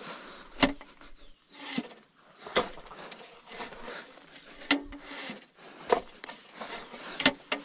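Sharp clacks at irregular intervals, about five of them one to two seconds apart, with soft rustling and scuffing in between: the sounds of hand-planting tobacco seedlings in the field.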